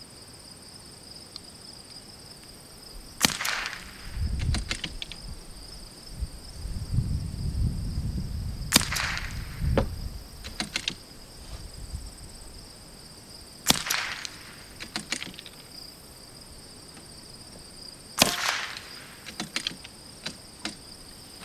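.22 LR bolt-action rifles fired four times at a slow, even pace, one shot every four to five seconds. Each crack is followed by a few quick clicks as the bolt is worked for the next round. A steady high insect buzz runs underneath.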